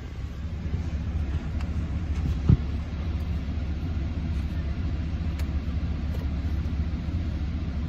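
A vehicle running, heard from inside its cabin as a steady low rumble. There is a single short thump about two and a half seconds in.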